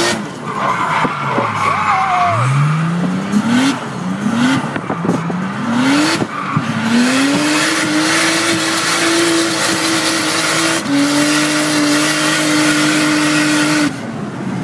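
Toyota Chaser JZX100 drift car's engine heard from inside the cabin, revving up in a series of short climbs, then held at steady high revs for several seconds before dropping off near the end. Tyres skid and squeal under it as the car slides through the corners.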